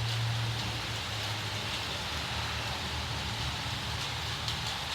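Steady rain hissing, with a low rumble underneath that is strongest in the first second and a half.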